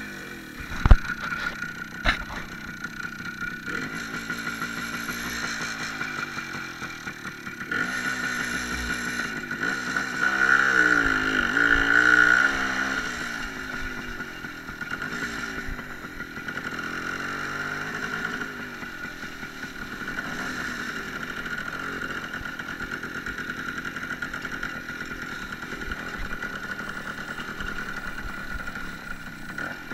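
Small motorcycle engine running while riding, its revs rising and falling, with a louder burst of higher revs near the middle. Two sharp knocks sound about one and two seconds in.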